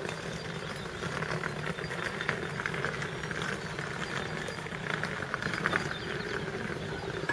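Steam locomotive hauling a train of coaches at low speed, running tender first: a steady train noise with faint, irregularly repeated beats through it.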